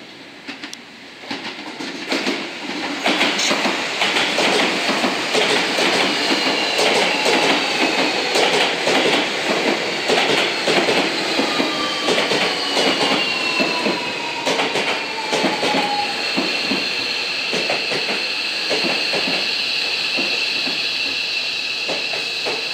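Seibu 40000 series electric train pulling in alongside the platform and braking. Its wheels clack over rail joints and points, and a high electric whine from the motors falls in pitch as it slows. The whine then settles into steady high tones.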